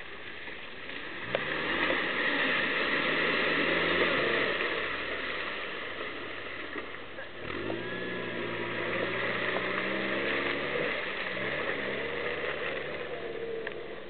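Off-road 4x4's engine revving hard three times as it ploughs through a water-filled crater, with a steady rush of splashing water.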